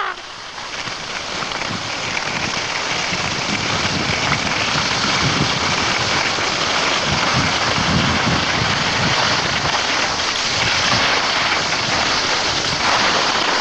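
Steady rushing hiss of a fast downhill ski run: skis sliding on snow and air rushing across the microphone. It builds over the first couple of seconds and then holds.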